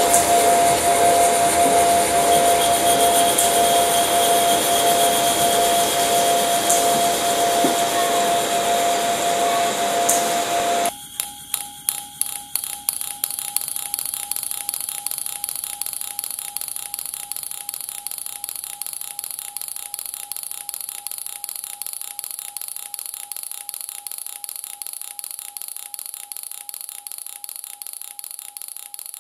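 Experimental electronic music: a dense, noisy drone with a steady high tone, which cuts off suddenly about eleven seconds in to a quieter pattern of quick, evenly repeated pulses over a faint held tone that slowly fades.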